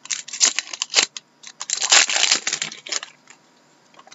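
Hockey trading cards being flipped and slid through the hands: a quick run of papery snaps and rustles, densest about two seconds in, stopping about three seconds in.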